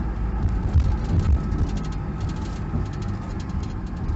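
Engine and road noise inside a moving vehicle's cabin while driving: a steady low rumble.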